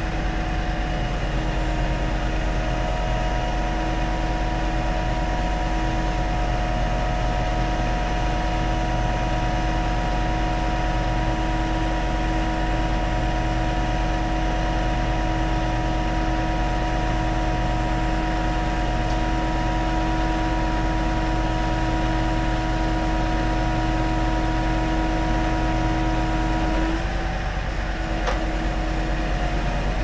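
Scania timber truck's engine running steadily at raised speed to drive its log crane's hydraulics, a steady hum with several held tones that shift slightly about 27 seconds in.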